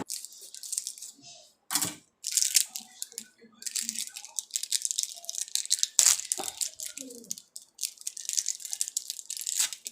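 A plastic wrapper crinkling and tearing, in irregular crackly bursts, as a dishwasher tablet is unwrapped.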